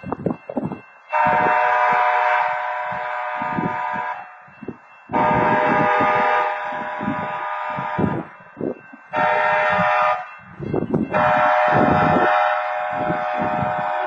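Locomotive air horn sounding the grade-crossing warning: two long blasts, one short, then a long one, as the train approaches the crossing.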